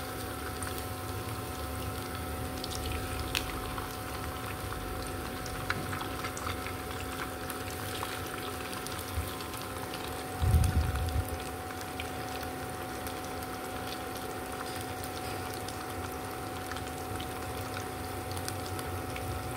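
Vegetarian mock-meat patties sizzling as they fry in a pan of hot oil, with scattered light clicks of chopsticks against the pan over a steady faint hum. A dull thump about halfway through is the loudest sound.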